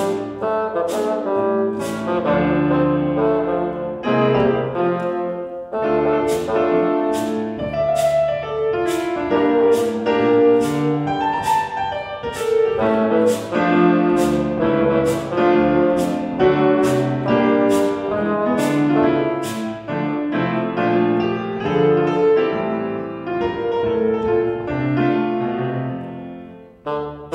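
Bassoon playing a jazzy melody over piano accompaniment, with a cabasa scraped in a steady beat. The music briefly drops away near the end, then carries on.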